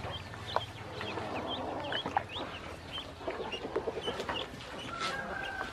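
Ducklings peeping: many short, high chirps, several a second and overlapping, with one longer, lower note near the end.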